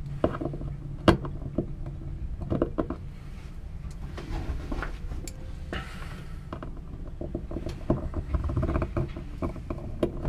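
Irregular clicks, knocks and scrapes of hand work driving screws with a screwdriver, over a steady low rumble.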